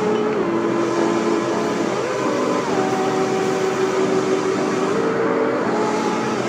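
Background music of held notes that glide up or down to a new pitch every second or two, over a steady hiss.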